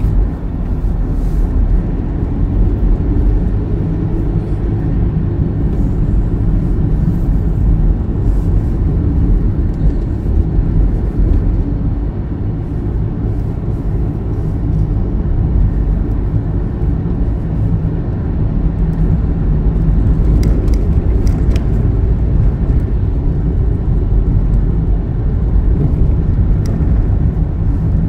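A car driving on a snow-packed, icy road, heard from inside the cabin: a steady low engine and tyre rumble, with a few light ticks about twenty seconds in.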